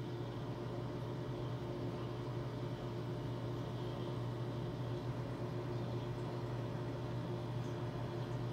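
Steady low hum with a hiss over it, from the running pumps of a reef aquarium.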